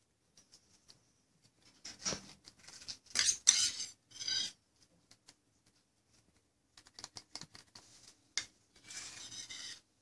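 A metal spoon scraping and clicking against a macaw chick's beak as it takes hand-fed formula, in several short bursts with a quiet spell in the middle.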